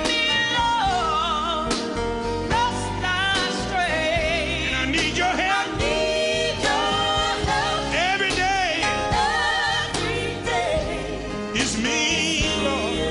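Live gospel music: a singer's voice with wide vibrato sliding through long, drawn-out notes over a band with drums.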